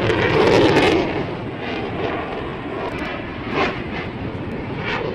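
Jet noise from a Sukhoi Su-35 fighter's twin turbofan engines as it flies a display manoeuvre. The noise is loudest in the first second, then settles to a steadier, lower level with a few brief crackles.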